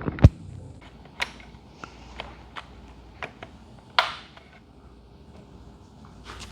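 Scattered light clicks, taps and small knocks from parts being handled on the motorcycle's tail: the tool bag and its strap being fitted back in place. There is a dull thump at the start and one louder, sharper knock about four seconds in.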